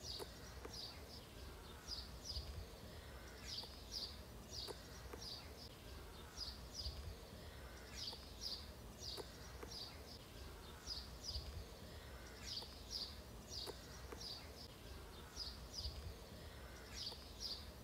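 Faint, steady outdoor ambience of high chirping, in quick groups of two or three that repeat about once a second, over a low rumble.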